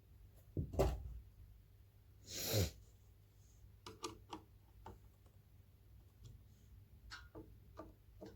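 Quiet handling of reassembled ceiling fan parts: a sharp knock just under a second in, a short breathy burst about two and a half seconds in, then scattered light clicks.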